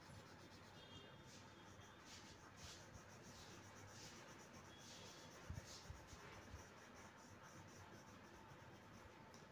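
Faint scratching of a colour pencil shading on paper, in short irregular strokes.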